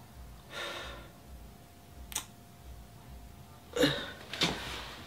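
A young man sighing and breathing out heavily in frustration: a soft sigh about half a second in, a light click a little after two seconds, and two louder, breathy sighs near the end.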